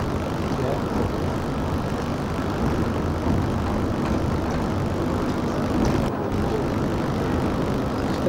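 Steady engine drone and road noise heard from inside a bus moving along a highway.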